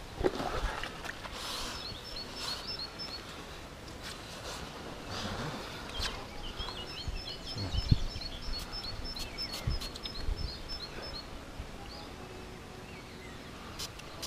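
A songbird singing: runs of short, high chirps repeated evenly, over steady outdoor background noise, with a few soft knocks, the loudest about two-thirds of the way through.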